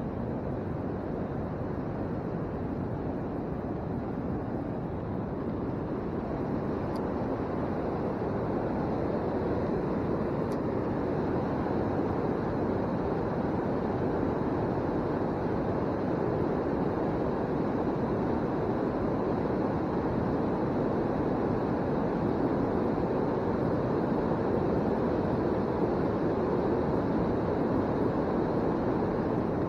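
Steady rushing noise with no pauses or distinct events, growing slightly louder after about ten seconds.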